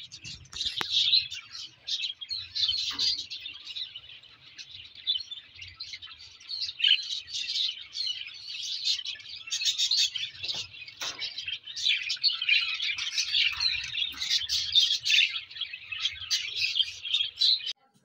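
Several lovebirds chattering in a dense, continuous stream of quick high chirps, cutting off suddenly near the end.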